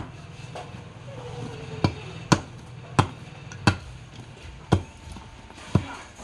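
Large curved machete-style blade chopping into a short upright log, about seven sharp chops at uneven intervals of half a second to a second, trimming the wood block into shape.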